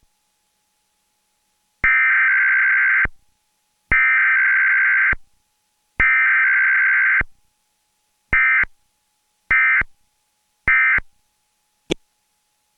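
Emergency Alert System Required Weekly Test data tones: the SAME header's buzzy digital burst sent three times, each about a second long and two seconds apart, followed by three short end-of-message bursts. A brief click near the end.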